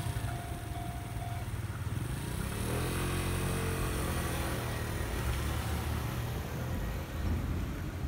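Idling engines of waiting road vehicles at a level crossing, one engine revving up about three seconds in as traffic starts across. A steady crossing warning tone stops about a second and a half in as the barriers begin to lift.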